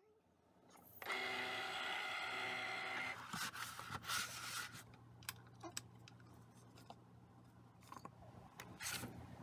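Cricut cutting machine's motor whining steadily for about two seconds. After it, a sheet of metallic foil crinkles and rustles as it is handled, with scattered light clicks and one more crinkle near the end.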